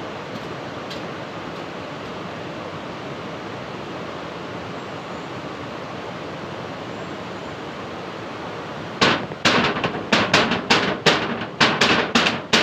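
A steady hiss of rain, then from about nine seconds in a fast, irregular run of sharp, loud knocks, about three a second.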